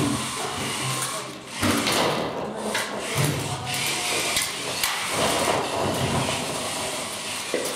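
Competition robots' electric drive motors and gearboxes whirring as they drive around the field, with several knocks and clatters as plastic crates tip over and balls spill and roll across the floor.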